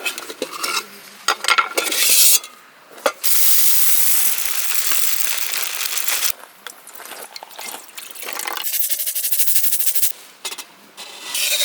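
Camp cookware and utensils being handled: clinks, knocks and scraping, with two longer stretches of steady hissing, typical of food sizzling or being stirred in a pan.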